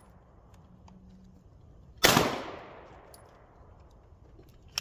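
A single 10mm pistol shot from a Glock G40 long slide, a sharp crack followed by a tail that fades over about a second. A short click comes near the end.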